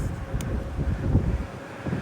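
Wind buffeting the microphone: a loud, uneven low rumble that eases briefly near the end.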